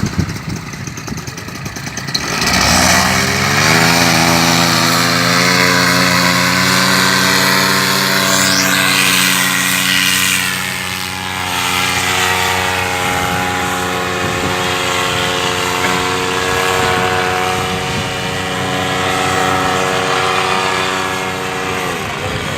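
Paramotor engine and propeller rev up from idle to full throttle about two seconds in, then hold steady at high revs for the takeoff run, easing briefly near the end.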